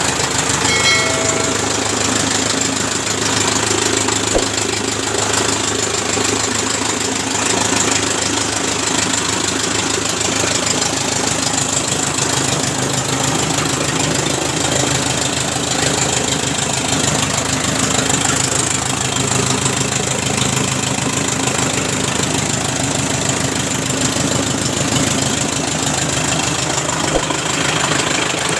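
Belt-driven straw chopper (chaff cutter) powered by a 4 hp electric motor, running steadily and loudly as straw is fed in and chopped.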